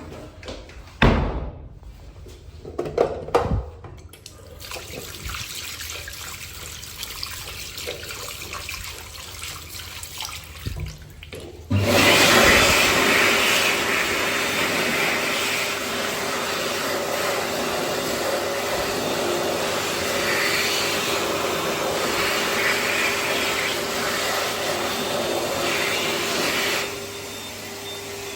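A Heatstore Tornado hand dryer blowing: it starts abruptly about twelve seconds in, runs loud and steady with a motor hum for about fifteen seconds, then drops off near the end. A couple of sharp thumps come in the first few seconds.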